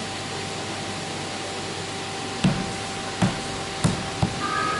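Volvo XC60 chrome window trim being pressed by hand into the door frame on its pre-bent clips: about four sharp knocks in the second half, over a steady workshop hum with a thin high tone.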